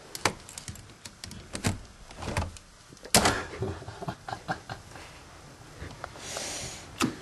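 A spatula tapping and scraping at a uPVC window's lever handle: a string of small clicks and knocks, with one louder clunk about three seconds in as the handle turns and the latch releases. A short hiss comes near the end, then a last click.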